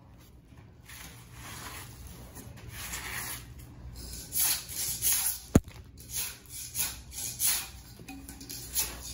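Metal scraper blade scraping dried glue and carpet backing off a concrete floor. Longer, softer scrapes come first, then short strokes about twice a second from around four seconds in, with one sharp click about halfway through.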